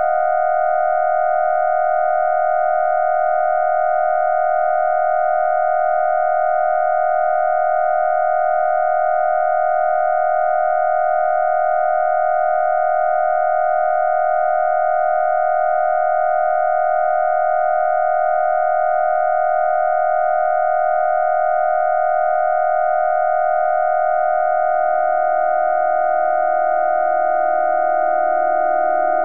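Steady held synthesizer tone from Ableton Live's Operator synth: one unchanging pitch with bright overtones. A second, lower tone fades in about two-thirds of the way through and grows louder.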